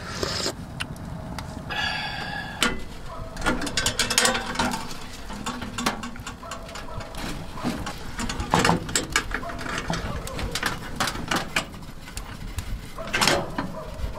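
Irregular series of sharp clicks, taps and knocks, some close together and some spaced out, with a few louder knocks.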